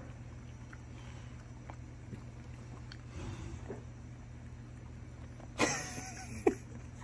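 Dog chewing pieces of desalted gompi (Ecklonia kelp), heard as faint scattered clicks over a steady low hum. About five and a half seconds in comes a brief loud rush of noise with a wavering whine in it, then one sharp click.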